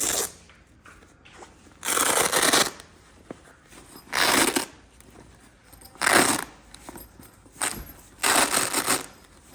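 Tool roll being handled: six short rasping noises, each well under a second, spaced one to two seconds apart.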